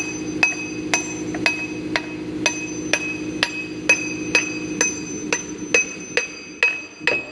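Steady, evenly spaced hammer blows on metal, about two a second, each with a short metallic ring. A steady hum runs underneath and fades near the end.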